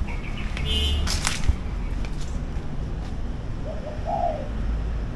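A caged dove cooing, one short coo phrase about four seconds in, with a brief high chirp about a second in.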